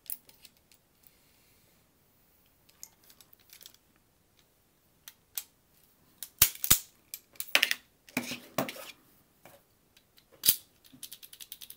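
Hand-operated key cutter clicking as it is set, then two sharp snaps about six and a half seconds in as a depth-4 cut is nipped into a Schlage key blank, followed by more clicks from handling the tool and key. Near the end comes a quick run of small clicks as the freshly cut key slides into a mortise lock cylinder past its pin tumblers.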